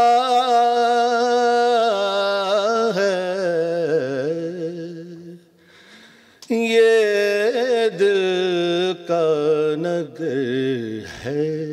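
A man's voice singing Urdu naat verses in long held, wavering notes, breaking off briefly about halfway before taking up the line again.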